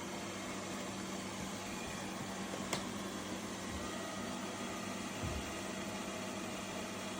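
Lefant M330 Pro robot vacuum running with a steady motor and fan hum. A sharp click comes about two and a half seconds in, and a dull low bump about five seconds in.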